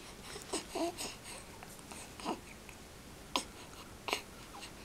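A young infant cooing: several short, soft coos and breathy vocal noises with a gliding pitch, spaced irregularly with pauses between them.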